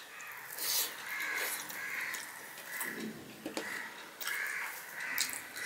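Fingers mixing and squeezing rice with vegetables on a steel plate, with a few sharp wet clicks of eating. A crow caws several times in the background.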